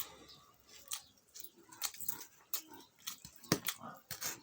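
Close-miked chewing and lip-smacking while eating fatty pork: irregular wet smacks and clicks, a few a second.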